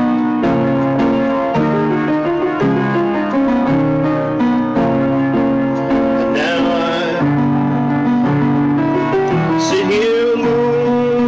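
Music: an instrumental passage of held keyboard chords with guitar. A sliding lead line comes in about six and a half seconds in and again near ten seconds, ending on a long held note.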